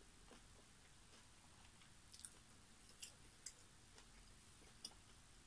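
Faint chewing of fried, stretchy mozzarella, with a few soft, short mouth clicks over near silence.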